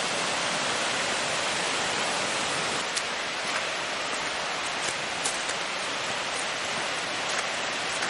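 Steady rushing of a waterfall, water dropping about 38 metres, heard as an even noise.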